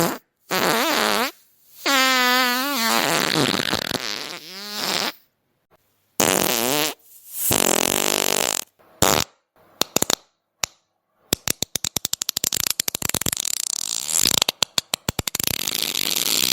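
A run of separate fart sounds. The first few, in the first five seconds, are long and pitched, wavering up and down. Shorter, noisier ones follow, then from about eleven seconds in a fast sputtering rattle of many quick pops, ending in a longer one.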